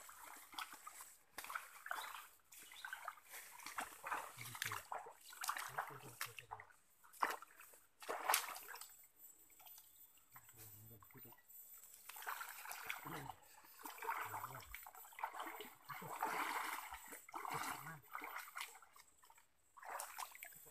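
Several people wading through a shallow stream, feet and rubber boots sloshing and splashing in the water in an uneven, irregular pattern.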